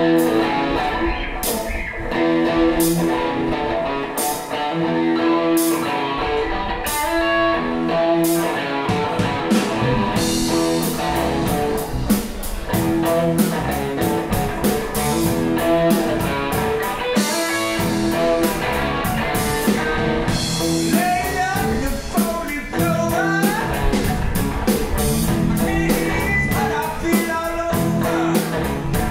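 Live blues-rock trio playing an instrumental passage: electric guitar, electric bass and a drum kit together, with a steady beat.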